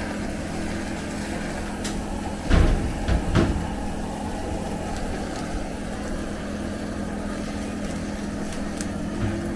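A handheld butane blowtorch burning steadily over a low steady hum, with two loud knocks about two and a half and three and a half seconds in.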